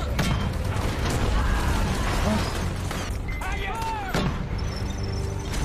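War-film battle soundtrack: a dense din of gunfire and explosions, with men shouting over it and score music underneath.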